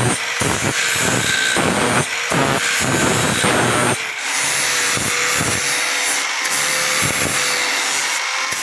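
Angle grinder running with a steady whine, its abrasive disc grinding the rusty steel blade of a pair of tin snips clamped in a vise. In the first half the grinding comes in short repeated passes, about three a second, then runs more evenly.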